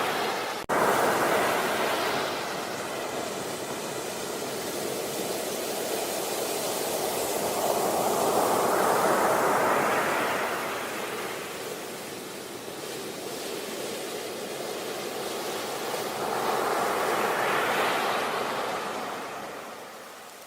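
Sea waves breaking and washing up a beach, a noisy surge that swells and fades roughly every eight seconds. There is a split-second gap in the sound less than a second in.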